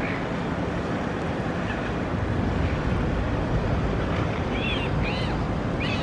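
Steady outdoor background rumble of city noise with wind on the microphone. A few short, high bird calls come near the end.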